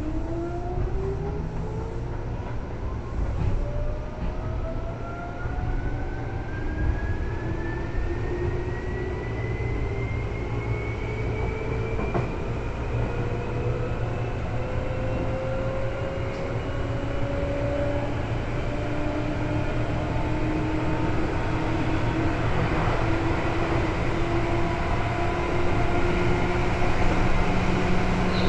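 Seibu 2000 series electric train heard from inside the car: the traction motor and gear whine climbs steadily in pitch over the first half as the train accelerates, over the steady rumble of wheels on rail, then runs on at a steady higher pitch.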